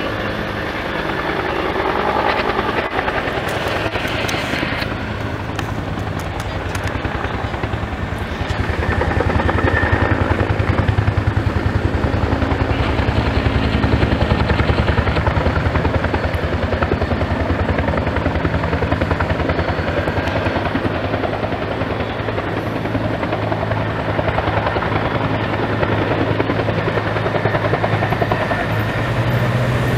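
Firefighting helicopter with a fast, steady beat of rotor blades over engine noise while it hovers. It grows louder about nine seconds in and stays at that level.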